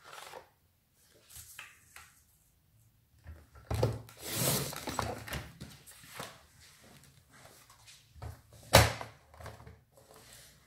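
Paper being handled and cut on a sliding-blade paper trimmer: rustling and a scraping slide of the cutter about four to five seconds in, with small taps, then one sharp hard thunk near the end, the loudest sound, as the trimmer is set down.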